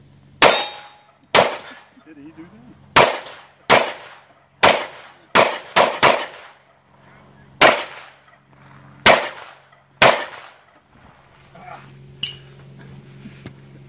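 Handgun firing about ten shots at an uneven pace, in pairs and singles with short pauses between, each shot echoing briefly. A fainter sharp metallic clank comes near the end.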